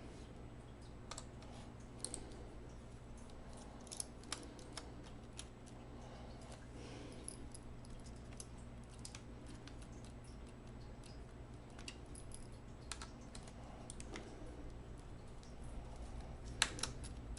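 Sparse light clicks and taps of a screwdriver and small parts being handled on an opened laptop while its motherboard screws are taken out, over a steady low hum. The loudest click comes near the end.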